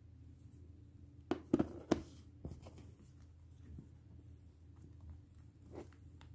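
Hands handling a flexible silicone mould and cured epoxy resin pieces: a few quick knocks and clicks, the loudest about one and a half to two seconds in, with smaller ones later, over a low steady hum.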